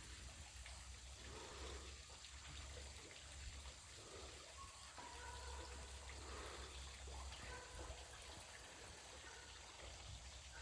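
Near silence: faint room tone, a low hum under a steady hiss.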